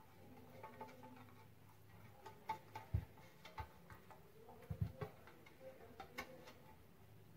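Faint, irregular clicks and taps of a silicone pastry brush dabbing oil into the corners of a metal loaf pan, with a few soft knocks as the pan is handled, the strongest about three seconds in and again near five seconds.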